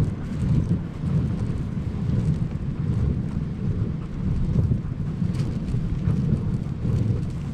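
Dog sled moving over a snowy trail behind a running team: a steady low rumble of the runners on the snow, mixed with wind on the microphone.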